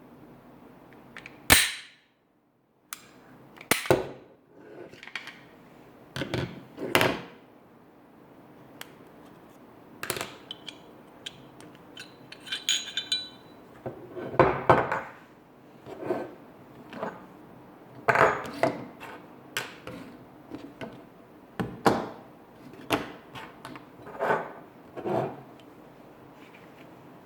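Handling of a Glock 19 pistol: a long irregular series of sharp mechanical clicks and clacks, the loudest about a second and a half in, with a brief metallic ring near the middle.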